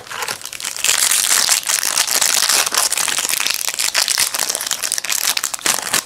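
Foil wrapper of a trading-card pack crinkling steadily as it is handled and opened, a dense crackle of many small crinkles that dies away near the end.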